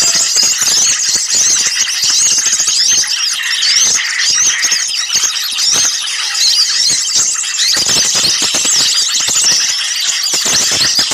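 A dense chorus of small birds chattering and chirping noisily, many high, quick calls overlapping without a break. It is a lure recording of agitated small birds, made to draw other small birds in.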